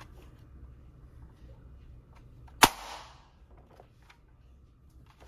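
Nerf Rival Fate XXII-100 spring-action blaster firing a single foam round: one sharp, loud crack about two and a half seconds in, with a short ring-off.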